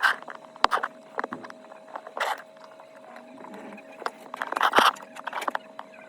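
Small clicks, taps and several short scrapes of hand tools working on a phone during a back-glass repair, over a faint steady hum.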